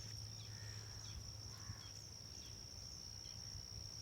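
Small birds chirping in short, scattered calls over a steady high-pitched insect trill.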